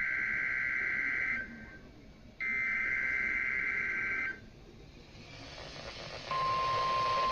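NOAA Weather Radio SAME digital header, received over a radio: two harsh, buzzy data bursts of about two seconds each, a second apart. These are the last two of the three header repeats that open a Required Weekly Test. About six seconds in, the steady 1050 Hz weather radio warning alarm tone starts over rising radio hiss.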